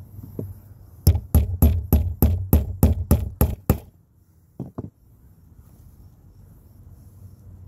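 A hammer striking a leatherworking tool: about ten sharp, evenly spaced blows at roughly three a second, then two lighter taps.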